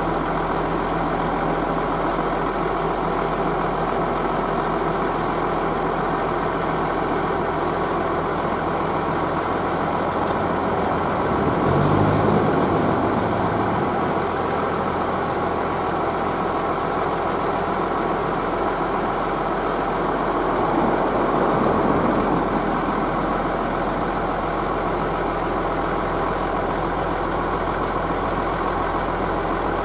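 Diesel railmotor engines idling steadily while the two-car set stands still. The sound swells briefly about twelve seconds in and again about twenty-one seconds in.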